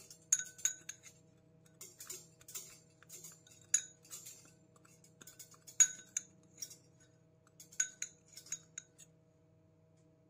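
Metal utensil clinking and scraping against a ceramic bowl while stirring and spreading melted chocolate: irregular clicks with a short bright ring, a dozen or so, stopping about a second before the end.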